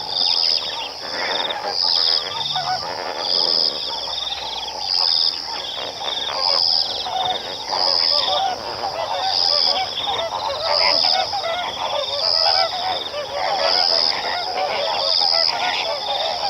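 A flock of flamingos honking and gabbling together, many short calls overlapping without a break. A high note pulses steadily behind them about every second and a half.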